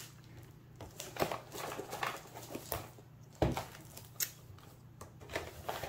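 Quiet rustling and crinkling of clear plastic wrap as a rolled diamond-painting kit is handled, with scattered light clicks and one thump about three and a half seconds in.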